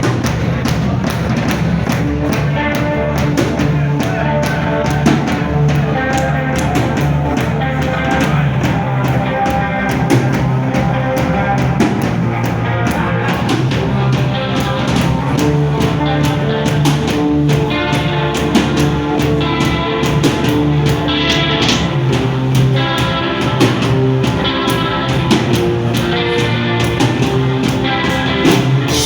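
Rock band playing live, with guitar, bass guitar and drum kit keeping a steady beat.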